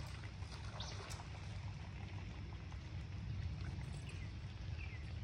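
Steady low outdoor rumble with short, falling bird chirps now and then, and a faint tick or splash about a second in.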